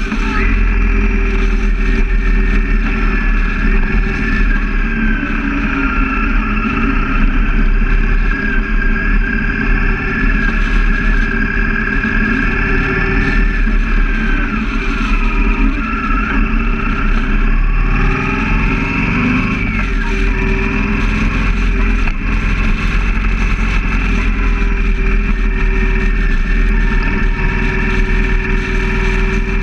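Motorcycle engine running steadily at highway speed, with heavy wind rumble on the camera microphone; the engine note slides down and back up about halfway through.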